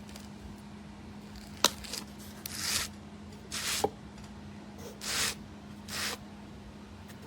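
Plastic supplement tub being handled after its seal is broken: a sharp click, then four short scraping, rustling strokes about a second apart, over a steady low hum.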